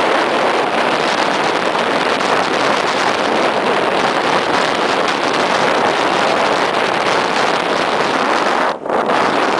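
Steady loud rush of a fast toboggan descent: sled runners scraping over packed snow, mixed with wind buffeting the microphone. The noise dips briefly near the end.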